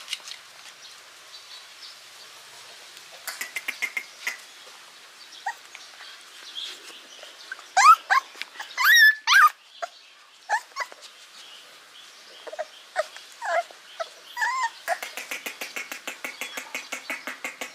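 Puppies whimpering and crying in high, wavering cries that come in scattered bunches, the loudest about halfway through; the puppies are hungry and want food. A run of rapid, even clicks sounds along with the cries near the end.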